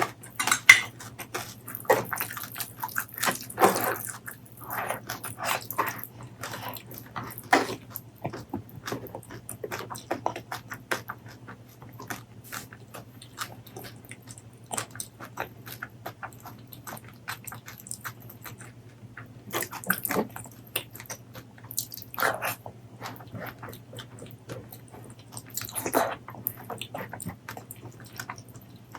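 Close-miked mouth eating sounds: wet chewing and lip-smacking with sticky clicks and occasional crunches, coming in irregular clusters, busiest in the first several seconds and again in the latter half.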